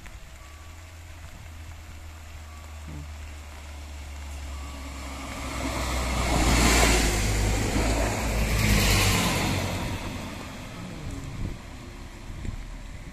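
ÖBB class 5022 Desiro diesel multiple unit passing close by: a low diesel engine hum builds up, then two loud rushes of engine and wheel noise about two seconds apart as the two cars go past, and the sound fades as the train runs on.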